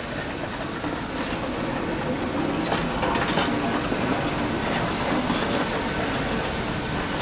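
Hand pallet truck under a heavy loaded pallet, its wheels rolling over rough concrete with a steady rumble and light rattling clicks.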